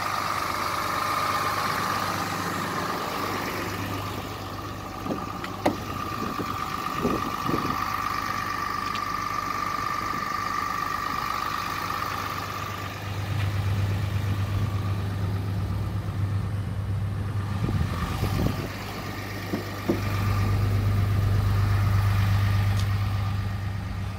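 6.7-litre Cummins turbo diesel of a 2009 Dodge Ram 3500 idling with a steady low hum and a thin high whine. The hum gets louder about halfway through and again near the end. A few sharp clicks come around six to seven seconds in.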